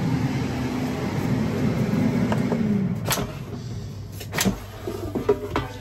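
Ninja dual-basket air fryer's fan running with a steady hum, then winding down in pitch about halfway through as the heating cycle ends. A couple of sharp clicks follow.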